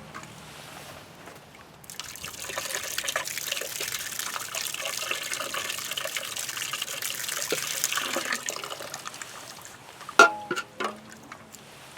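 Water poured steadily into a frozen sink drain to thaw the ice, starting about two seconds in and trailing off after several seconds. A few sharp clanks follow near the end.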